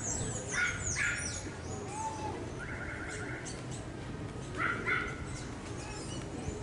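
Birds calling: high, falling whistled notes at the start, short two-note calls about half a second and a second in, a quick rattling trill around three seconds in, and another pair of calls near five seconds, over a low steady outdoor hum.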